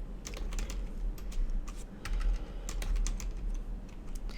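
Computer keyboard being typed on: irregular key clicks, with a low steady hum underneath.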